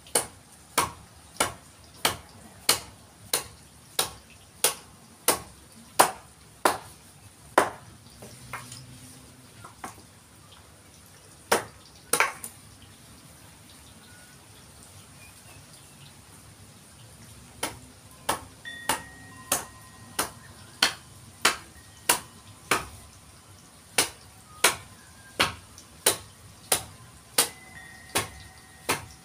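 Mallet striking a chisel into a forest red gum eucalyptus log while it is shaped into a didgeridoo. The sharp knocks come in a steady series about one and a half a second, break off for several seconds in the middle, and then resume at the same pace.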